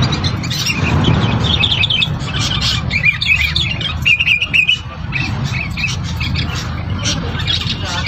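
Songbirds singing and calling in quick high chirps, busiest about three to five seconds in, over a steady low hum.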